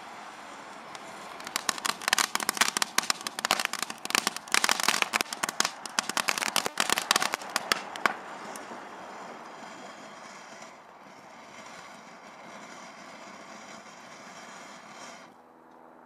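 Fireworks burning inside a running microwave oven. A steady fizzing hiss breaks about a second and a half in into dense, rapid crackling for about six seconds, then settles back to a hiss that slowly fades, leaving a faint low hum near the end.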